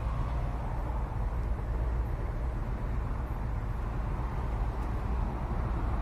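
Steady low rumbling background noise, unchanging, with no distinct events.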